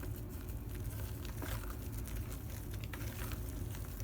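Spatula folding partly frozen whipped topping into a thick pumpkin and pudding mixture in a bowl: soft squishing and light scraping against the bowl, over a steady low hum.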